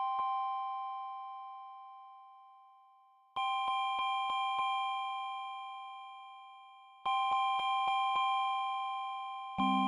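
Ensoniq EPS-16 Plus playing layered sine-wave tones at different pitches, like a soft electric organ or bell chord. The chord is struck several times in quick succession and left to fade. It is struck again about three and a half and seven seconds in, each time with more pitches added, and a low tone joins near the end.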